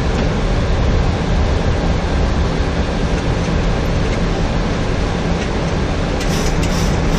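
Steady flight-deck noise of a Boeing 737-800 in flight: an even rushing of air past the cockpit with engine hum beneath it, heaviest in the low end.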